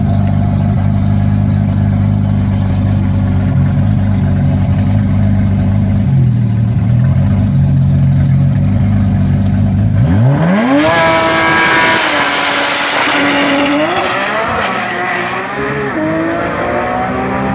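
Tuned Nissan GT-R's twin-turbo V6 held at steady revs on the drag-strip starting line, then launching about ten seconds in: the engine note climbs sharply and keeps rising in steps through quick gear changes as the car pulls away down the track.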